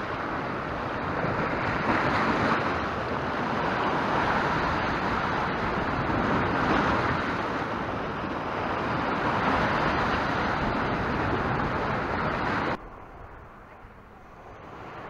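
Sea waves breaking and washing against a rocky shore, surging up and falling back every few seconds. About thirteen seconds in the surf cuts off abruptly, leaving a much quieter hush.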